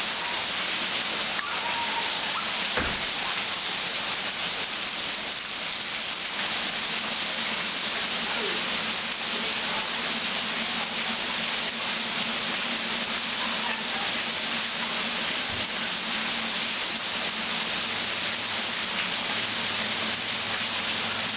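Heavy rain pouring steadily onto a flooded driveway and carport, falling into standing floodwater. A single knock sounds about three seconds in.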